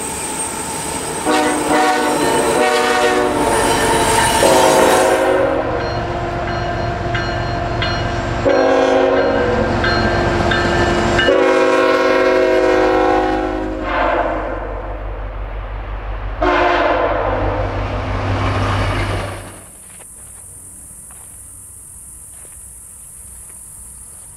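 Canadian National diesel locomotive sounding its multi-note air horn in four blasts, over the low rumble of the running engines. At about twenty seconds the train sound stops suddenly, leaving a steady high insect chirring.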